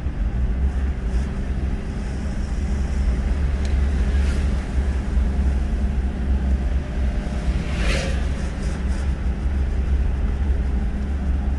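Steady low road and engine rumble heard inside a moving car's cabin, with a short burst of noise about eight seconds in.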